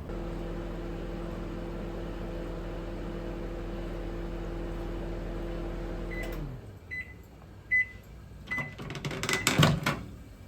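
Microwave oven running with a steady hum for about six seconds, then winding down as the cycle ends. It gives several short beeps to signal it has finished, and a door or dish clatters near the end.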